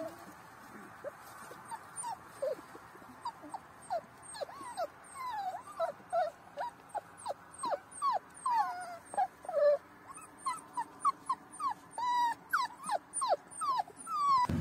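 A litter of young puppies whimpering and whining in short, high, falling cries. They are scattered at first and come quickly, several a second, from about four seconds in.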